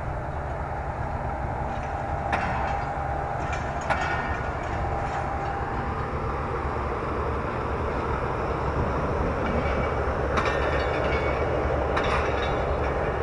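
Rake of passenger coaches rolling past on the next track: a steady rumble of wheels on rails, with a sharp clack now and then, about four times.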